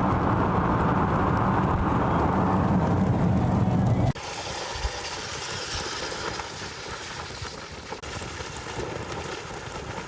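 Car driving, with loud, steady road and wind noise in the cabin through an open window. About four seconds in it cuts off suddenly to a much quieter, steady hiss.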